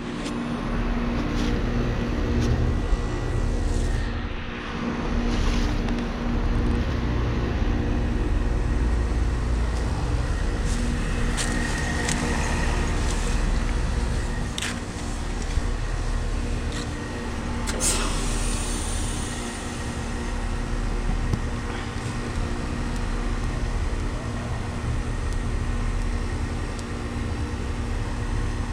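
2012 Lennox Merit 13HPX two-ton heat pump outdoor unit running as it comes out of a defrost cycle: a steady compressor hum over a low rumble. A few sharp clicks come about halfway through.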